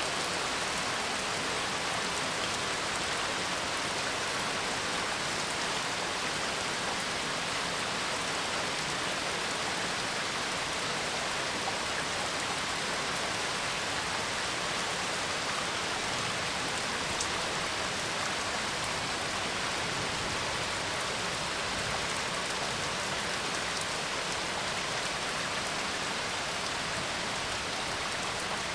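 Steady rain falling, an even, unbroken hiss of drops on surfaces.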